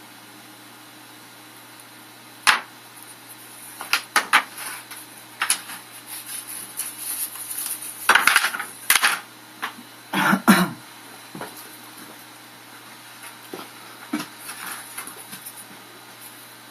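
Irregular knocks and clatter of hard objects being handled, with a cluster of louder clattering in the middle, over a faint steady hum.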